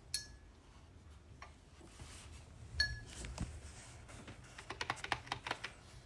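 Paintbrush clinking against a hard palette or dish while paint is mixed. Two sharp clinks, each with a brief ringing tone, come at the start and about three seconds in. Near the end there is a quick run of about a dozen light taps.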